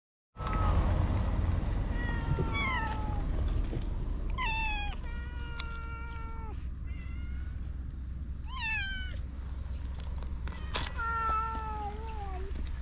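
Stray cat meowing four times, the second meow long and drawn out, over a steady low rumble.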